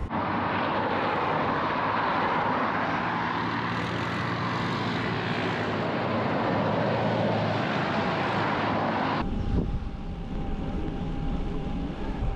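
Steady engine noise that starts abruptly and cuts off suddenly about nine seconds in. It gives way to wind rushing over the microphone with a faint steady whine.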